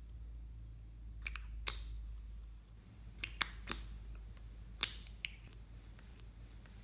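Scattered sharp clicks and taps, about seven of them at uneven intervals, over a low hum, from handling a small plastic-capped bottle of red makeup liquid and dabbing its brush cap onto slime.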